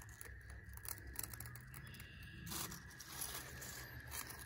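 Faint tearing and crinkling of a Cecropia moth cocoon's silk and its dry attached leaves as it is pulled loose from the twig by hand, in short irregular rustles.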